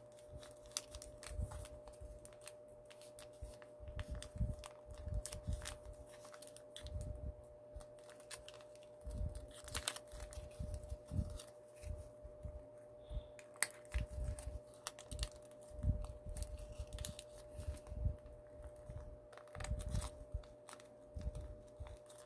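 Square origami paper being folded and creased by hand: irregular crinkling and crackling with soft low thumps of handling, over a faint steady hum.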